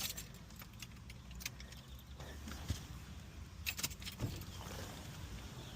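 Small metal objects being handled: a few light, scattered clicks and jingles, like keys, over a low steady hum.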